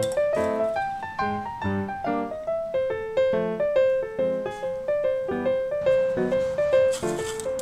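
Background music: a light piano-like tune of short stepping notes over bass notes.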